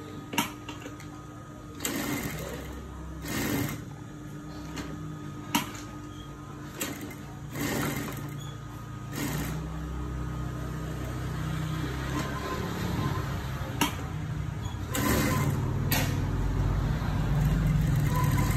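Juki industrial sewing machine stitching in short stop-start runs, becoming steadier and louder in the last few seconds. The fabric rustles as it is handled, with a few sharp clicks in between.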